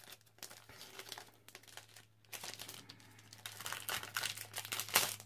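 Packaging being opened by hand: irregular crinkling and crackling that grows busier in the second half, with the loudest crackle near the end.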